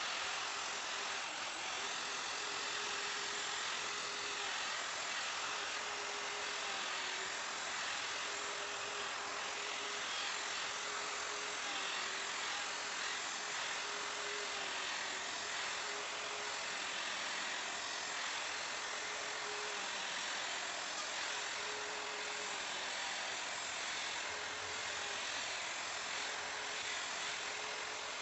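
Electric wood router running steadily: a full, even motor-and-cutter noise with a faint hum that wavers slightly in pitch. It switches in abruptly at the start.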